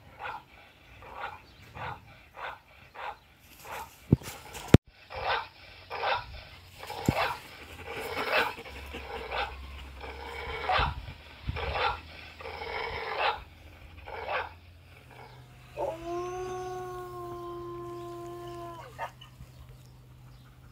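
Recorded dog barks played back in a long steady series, about two barks a second, broken by two sharp clicks a little past four seconds in. Then a recorded dog howl, one long call held at a steady pitch for about three seconds.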